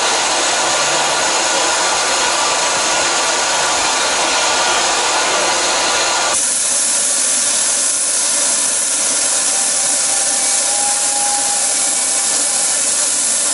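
Narrow gauge steam locomotive letting off steam: a loud, steady hiss that turns brighter and higher about six seconds in.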